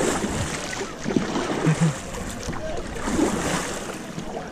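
Kayak paddle strokes splashing in the water, with a few brief fragments of voice.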